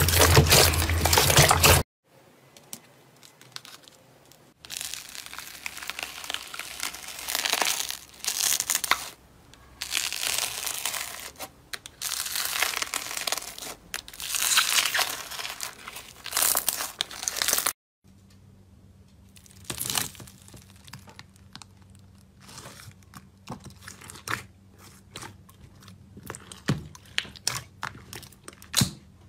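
Hands playing with slime. First wet sloshing as dark-blue slime is kneaded in a basin of water. After a short pause comes squishing and crinkling as a textured yellow slime is pressed, in bursts about a second long. After a cut, many small sharp pops and clicks come as fingers poke and fold a softer pink slime.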